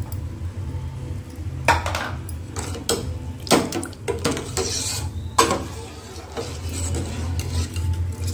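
Steel ladle stirring milk and cooked rice in a stainless steel pan, clinking and scraping against the metal several times, over a steady low hum.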